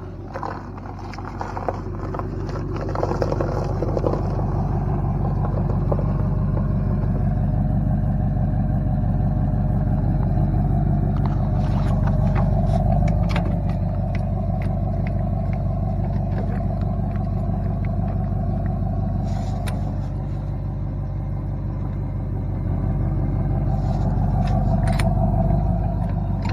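Truck engine running steadily, its level building over the first few seconds, with a few short clicks and clanks.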